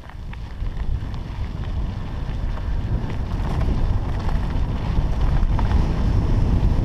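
Wind rushing over the microphone and tyres rolling on loose dirt and gravel as a Trek hardtail mountain bike descends, growing louder as it gathers speed, with a few small ticks from stones and the bike.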